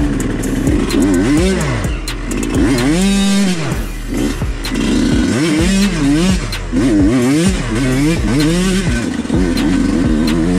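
Yamaha YZ125X single-cylinder two-stroke dirt bike engine under throttle, its pitch rising and falling about once a second as it is revved and let off again and again, with a few sharp knocks.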